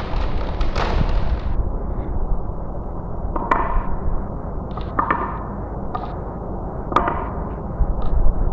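Marbles rolling along a marble-run track with a steady low rumble, and five sharp clacks from about three and a half seconds in, each ringing briefly, as marbles knock against the track and each other.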